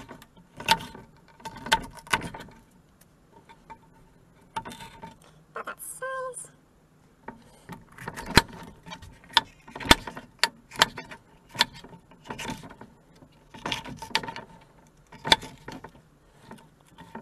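Kitchen knife slicing green bell peppers into strips on a cutting board: an irregular run of sharp taps as the blade cuts through the pepper and strikes the board, a few louder strokes in the middle.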